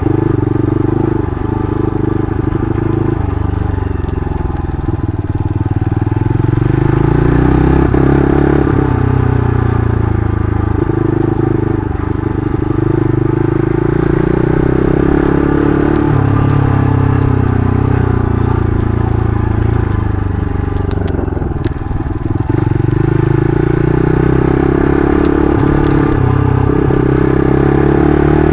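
Mitt 278 125cc scrambler motorcycle engine running under way, revs rising and falling as the throttle is worked, with a short drop in revs about three-quarters of the way through.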